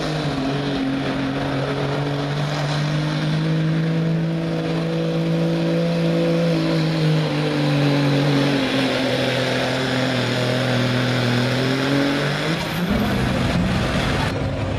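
Diesel pickup truck engine running at high, steady revs under full load while pulling a weight-transfer sled. Its pitch drops in two steps past the middle, and near the end the engine note falls away and changes.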